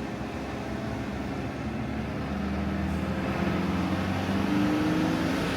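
Campervan engine pulling uphill, heard from inside the cab, its note building slowly and rising a little near the end.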